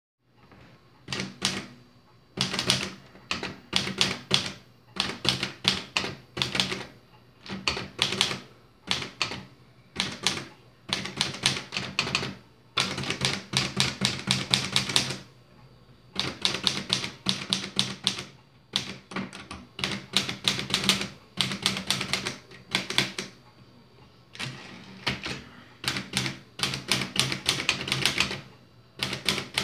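Red portable manual typewriter being typed on: rapid runs of clattering key strikes in bursts of a second or more, broken by brief pauses throughout.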